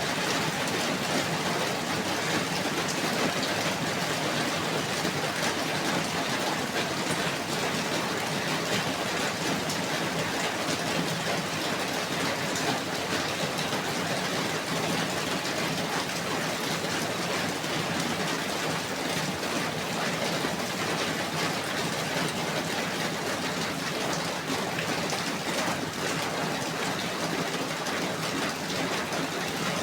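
Steady heavy rainfall, an even hiss of many drops with no breaks.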